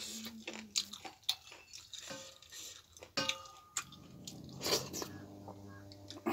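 A person chewing and biting food close to the microphone: wet mouth clicks and crunches at irregular intervals, with a low hum-like tone during the second half.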